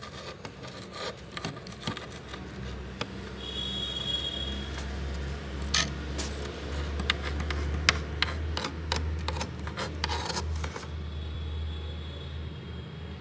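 Metal spoon scraping packed freezer frost: crunchy rasping strokes with sharp crackling clicks, busiest in the second half.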